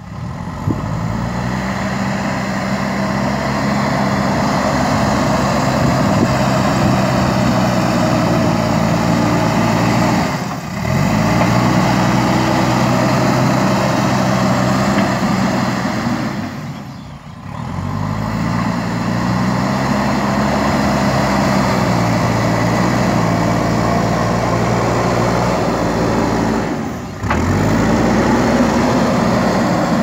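JCB 3DX Super backhoe loader's diesel engine running under load while pushing dirt with the front bucket, revving up several times, its pitch climbing and then holding steady. The sound dips briefly three times.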